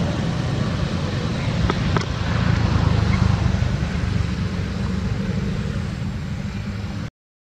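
Steady low outdoor background rumble with a couple of faint clicks about two seconds in, cutting off suddenly near the end.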